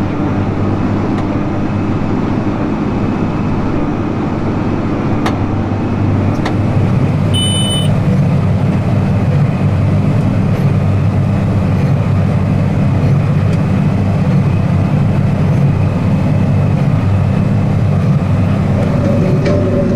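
Large farm tractor running steadily under load while pulling a big square baler through straw, growing a little louder about six seconds in. A brief high beep sounds near the middle.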